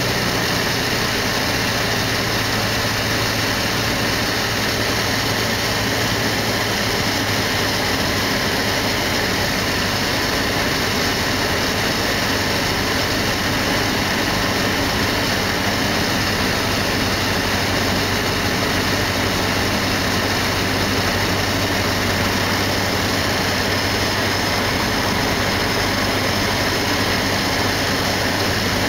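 Cessna 152's four-cylinder Lycoming engine and propeller running steadily in flight, heard from inside the cabin as a constant low drone under a wide rush of noise.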